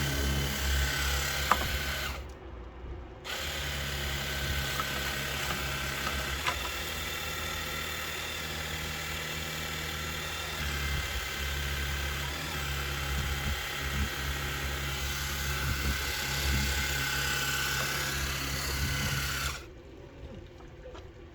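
Cordless battery-powered pressure washer running, its electric pump humming steadily under a hiss of spraying water. It stops briefly about two seconds in, starts again, and cuts off suddenly near the end.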